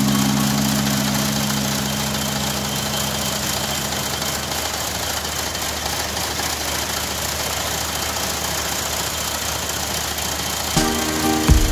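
Small tractor's engine and the hydraulically driven cutter bar of a home-built lavender harvester, adapted from an old BCS 622 reaper-binder, running steadily as it cuts along a lavender row.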